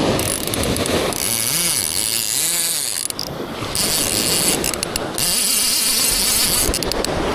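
Fishing reel ratcheting and whirring as a hooked fish is fought on a surf rod, with line going on and off the spool; the fish is a gummy shark. The sound stops briefly a few times, then picks up again.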